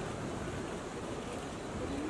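Steady background noise, an even hiss and low rumble with no distinct events.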